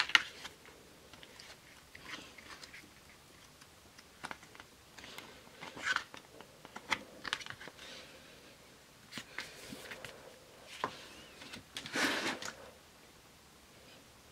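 Paper, card and a cardboard box handled by hands: scattered light taps and clicks with short rustles of paper, the longest rustle near the end.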